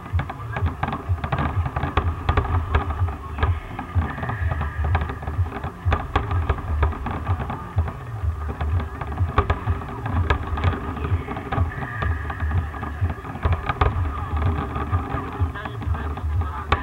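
Aerial fireworks shells bursting in a dense barrage: a rapid, uneven string of sharp bangs over a continuous deep rumble of booms.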